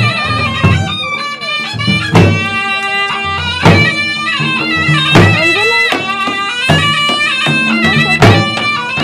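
Attan dance music: two dhols beaten hard, with heavy strokes about every second and a half and lighter beats between, under a reed pipe (surnai) playing a melody of held notes.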